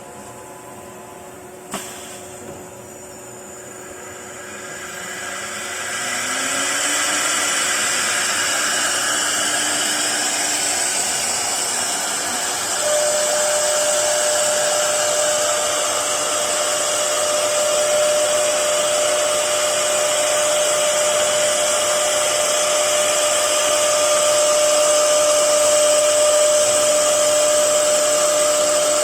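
A click, then CNC router machinery spinning up with a rising whine and settling into a loud, steady whir with several steady tones. About thirteen seconds in, another steady tone joins and it gets a little louder.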